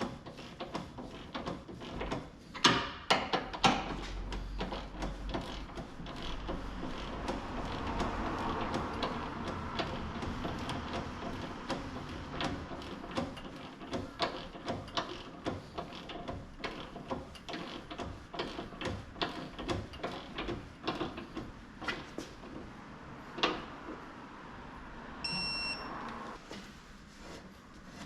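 Hand tools clicking and knocking against metal during work on a car's front suspension member, over a steady background noise, with a short high beep about 25 seconds in.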